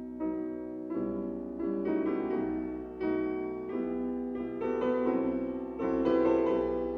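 Solo piano playing a classical piece, a steady flow of notes.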